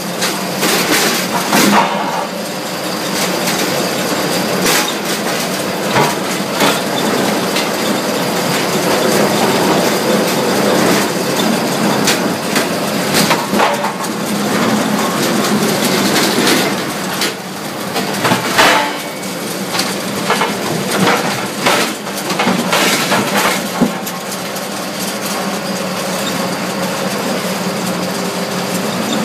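Mobile Cambio ring debarker running, with a steady machine hum and irregular wooden knocks and clatter as logs pass through it.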